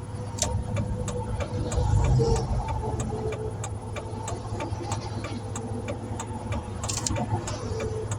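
Vehicle flasher ticking at a steady rhythm of a few clicks a second, over the low hum of an idling engine.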